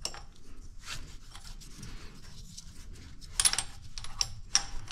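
Light metal clicks and scraping of a pulley puller being fitted onto a power steering pump pulley, its jaws set to grab the pulley flange; the loudest clatter comes a little past three seconds in.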